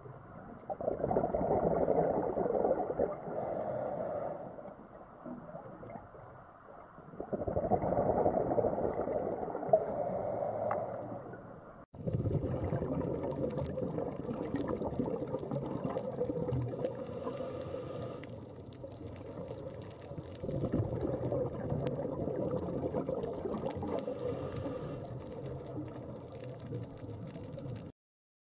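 Underwater bubbling and rushing water noise picked up by the camera, coming in two long surges a few seconds apart. After an abrupt cut about twelve seconds in, it turns to a steadier rushing underwater noise that swells again later on, then stops suddenly near the end.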